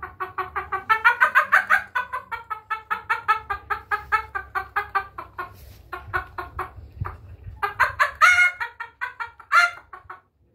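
A man imitating an agitated chicken with his voice: fast, even clucking at about six clucks a second, then after a short pause a few louder squawking calls near the end.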